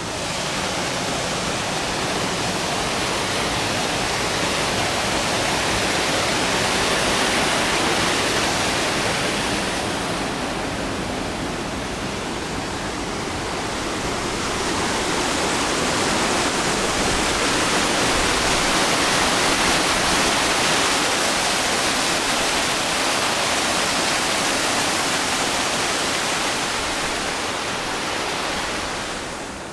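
Water rushing and pouring at a canal lock: a loud, steady roar of falling water that swells twice and falls away near the end.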